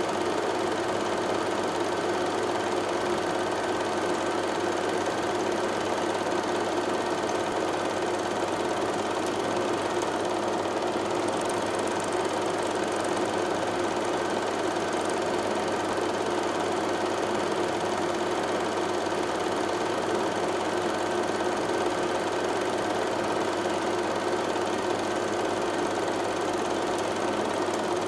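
A small motor running steadily, with a constant hum made of several even tones.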